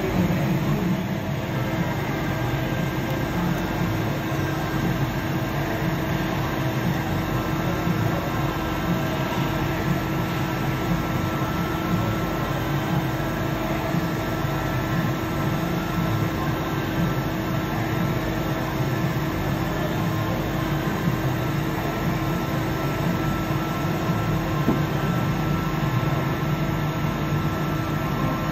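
Okuma Multus mill-turn machine milling the helical flights of a metal screw with an end mill while the C axis turns the part: steady cutting and spindle noise with a constant low hum. A higher steady whine comes in about eight seconds in.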